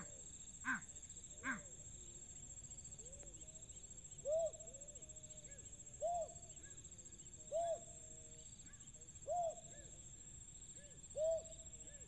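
Animal calls: three short harsh calls in the first second and a half, then low hooting notes repeated about every one and a half to two seconds, with fainter notes between, over a steady high whine.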